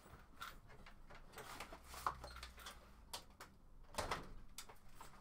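Faint scattered knocks and rustles of hands handling things at a workbench, with the loudest knocks about two seconds in and about four seconds in.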